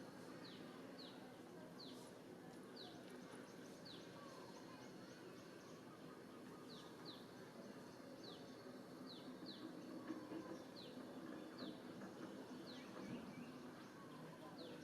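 Faint outdoor background noise with a bird chirping repeatedly: short high chirps that each drop quickly in pitch, coming roughly once or twice a second.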